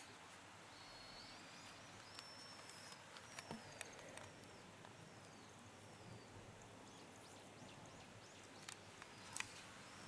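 Quiet outdoor ambience with faint bird chirps, short high arching calls repeated several times in the first half. A few small clicks come through, the loudest near the end.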